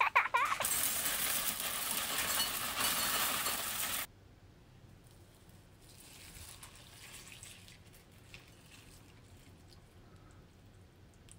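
Dry granola cereal poured from a bag into a ceramic bowl: a dense rattling hiss for about three and a half seconds that cuts off suddenly. After that, milk is poured faintly from a carton onto the cereal.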